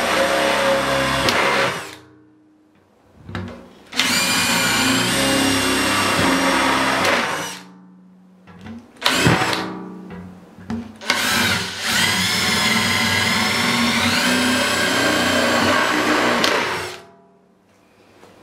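Small handheld rotary tool with a tapered bit grinding out a hole in a plastic bucket lid. Its high whine runs in bursts: about two seconds, then about three and a half seconds, a brief blip, then about six seconds, cutting off shortly before the end, the pitch shifting as the bit bites into the plastic.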